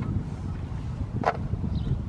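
Wind buffeting the microphone, an uneven low rumble, with a single short click a little past halfway.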